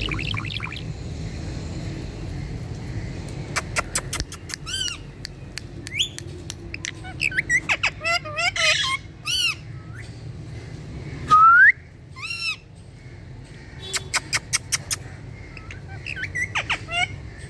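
Green pet parrot calling: bursts of rapid chirps and squawks and wavering whistles, with one loud rising whistle a little past the middle. A steady low hum sits underneath.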